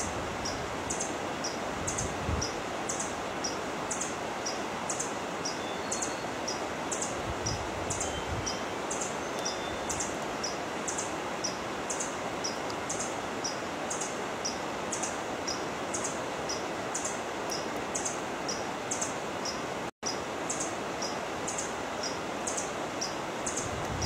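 Forest ambience: a steady hiss with high, short chirps repeating about twice a second, alternating between two pitches. The sound cuts out for an instant about four-fifths of the way through.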